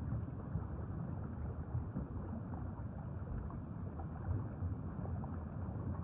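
Underwater ambience: a low, steady rush of water noise with faint scattered ticks.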